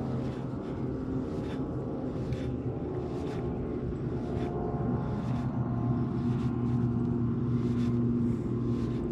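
Steady low hum of a boat motor, getting a little louder in the second half, with faint scattered ticks over it.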